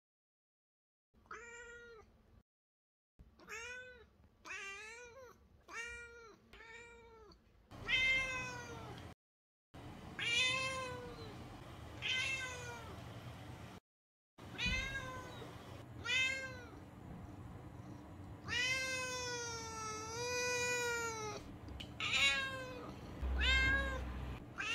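Lynx point Siamese cat meowing over and over, about a dozen raspy meows starting about a second in, with one long drawn-out meow in the later part. The raspy voice comes from a throat problem not yet diagnosed, with a throat culture pending.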